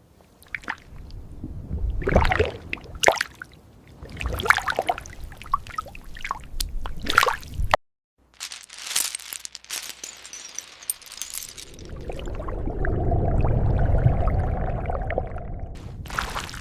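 Sea water splashing and sloshing in quick, irregular bursts. Shortly before halfway it cuts out for a moment. It returns as a hiss, then a longer rush of water swells and fades near the end.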